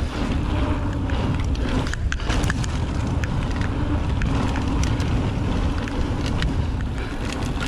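Mountain bike descending a dirt trail: wind buffeting the microphone and tyres rumbling over the ground, with frequent sharp clicks and rattles from the bike over bumps.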